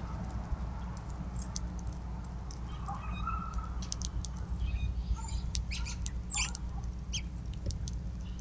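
House finches at a seed feeder: a scatter of short, high chips and ticks, thickest in the middle and later part, over a steady low hum.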